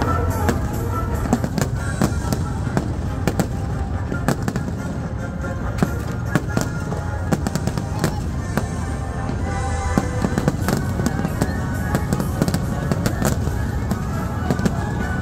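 Aerial fireworks shells bursting in a dense, continuous run of bangs and crackles, with orchestral music playing underneath.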